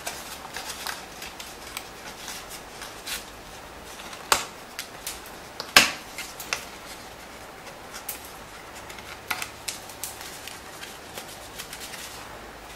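Stiff cardstock box being handled and flexed while die-cut scraps are poked out of it: scattered light clicks and paper rustles, with two louder clicks about four and six seconds in.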